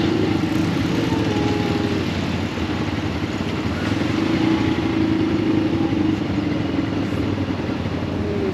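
Off-road buggy engine running steadily while driving, its pitch drifting up and down a little with the throttle.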